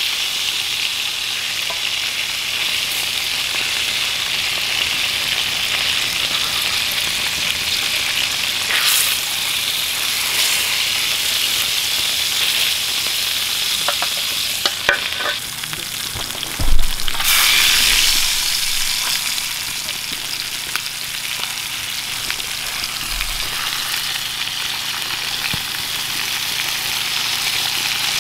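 Smallmouth bass fillets frying in a pan over a campfire, a steady sizzling hiss. A few light clicks of utensils come about halfway, then a thump and a brief louder surge of sizzling just after.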